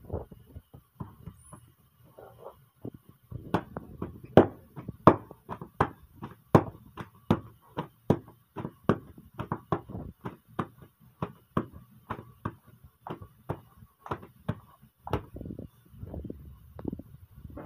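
Soft dough slapping and patting as a thin tannour-bread sheet is pressed, flipped and stretched between the hands and over a padded bread cushion. The slaps are light at first, then strike in a steady run of about one to two a second from about three seconds in.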